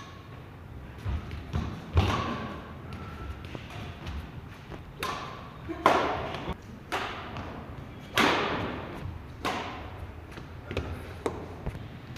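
Badminton rackets striking a shuttlecock in a rally: sharp hits every one to two seconds, each ringing on in the echo of a large hall, with thuds of footfalls on the court between them.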